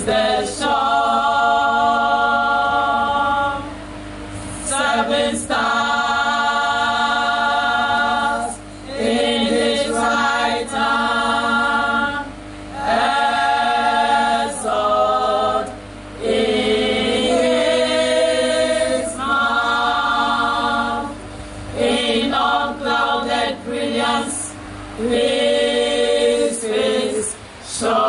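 Church choir of women's and men's voices singing together in phrases of one to three seconds, with short breaks between them.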